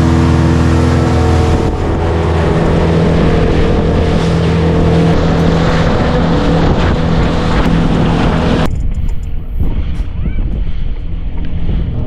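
Speedboat engine running steadily at speed, with water rushing and splashing along the hull. About nine seconds in the sound turns duller and the engine fades behind close, irregular splashing water.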